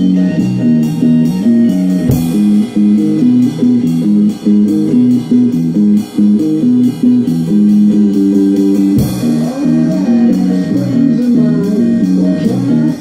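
Rock music: a guitar and bass riff repeating over a drum kit, with steady cymbal ticks and a cymbal crash about two seconds in and again about nine seconds in.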